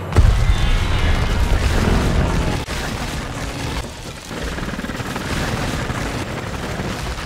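Film sound effects for a giant robot moving: a deep boom just after the start, then continuous heavy low rumbling.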